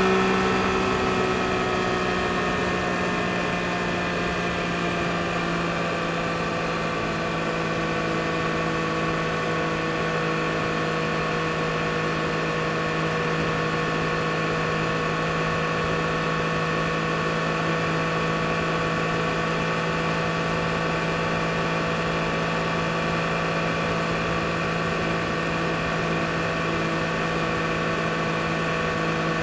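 2022 Yamaha MT-09 SP's inline three-cylinder engine running at steady revs, a constant even hum that holds one pitch after settling in the first second.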